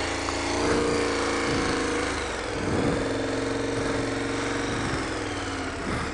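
KTM adventure motorcycle engine idling steadily.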